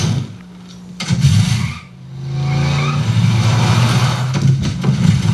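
A car engine in a cartoon soundtrack, revving up about two seconds in and then running loud and steady.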